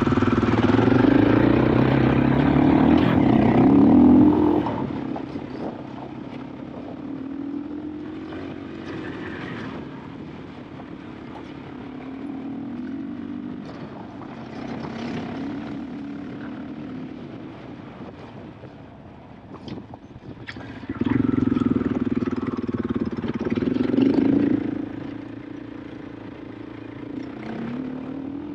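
KTM 500 EXC-F enduro motorcycle's single-cylinder four-stroke engine, revving up and down as the bike is ridden. It pulls hard for the first four seconds or so, then runs quieter at lower throttle with short rises in revs, and pulls hard again for a few seconds a little past the twenty-second mark.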